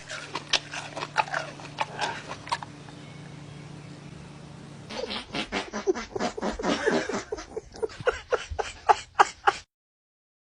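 A dog giving a series of short, sharp calls: scattered ones at first, then a quicker, louder run of them from about halfway.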